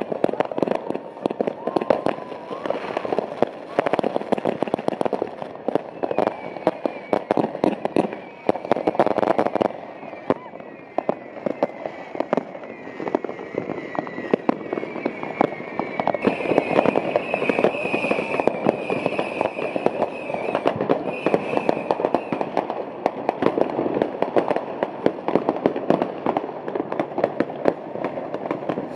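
Fireworks and firecrackers going off without a break: a dense, rapid run of bangs, pops and crackles. A high whistling tone sounds through the middle for over ten seconds, sinking slightly and then holding.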